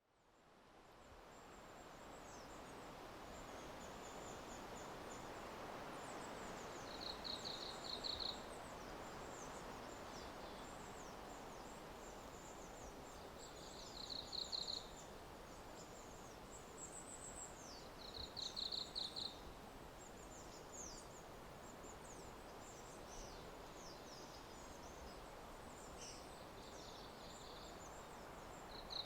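Forest ambience: a steady soft rushing hiss that fades in over the first couple of seconds, with small birds chirping high and thin throughout and one bird's short trill repeated every few seconds.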